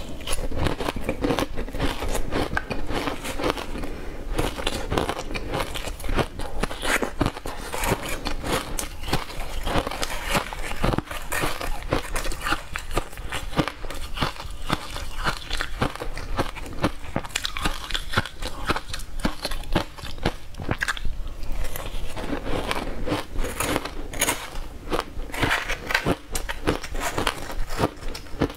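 Close-miked crunching of shaved ice being bitten and chewed, a dense run of crisp crackles and crunches, with a metal spoon scraping through the ice in a steel bowl.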